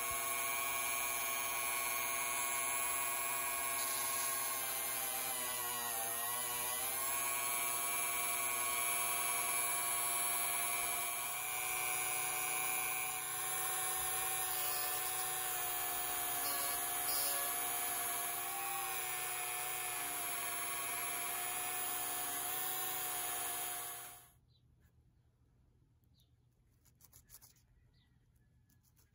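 Small rotary tool with a rubber polishing wheel, clamped in a bench holder, running with a steady whine; its pitch sags briefly about six seconds in. It is switched off near the end, and sandpaper then rubs faintly on a small screw.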